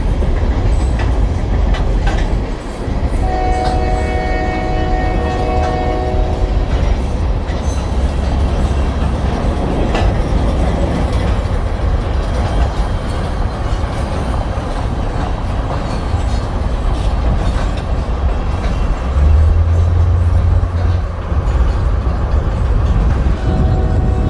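Multi-chime air horn of a Union Pacific maintenance-of-way weed sprayer train sounding one long chord for about three and a half seconds, starting about three seconds in, and starting another blast near the end. A steady heavy low rumble runs underneath.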